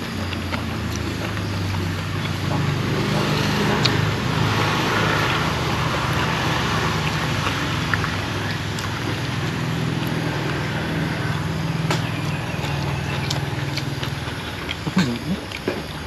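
A motor vehicle engine running at a steady, unchanging pitch for most of the stretch, dying away about fourteen seconds in.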